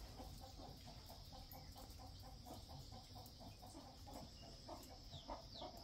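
Faint chicken clucking: a quick, even run of soft clucks, about five a second, over a steady high hiss.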